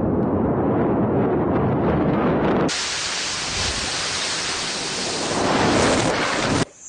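A low rumbling noise gives way, under three seconds in, to a steady rushing hiss from a railway-bridge demolition blast played in reverse, with no distinct bang. The hiss cuts off suddenly near the end.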